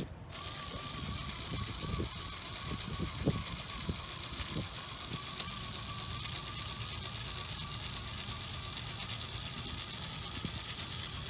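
Excavation robot's electric motors running, a steady high whine over a low rumble, with a few knocks in the first few seconds.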